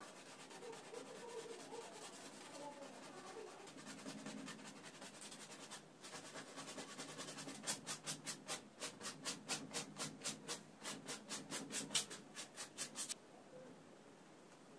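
Bristle paintbrush scrubbing paint onto a stretched canvas in quick short strokes, then a louder, rhythmic run of strokes, about four a second, that stops abruptly near the end.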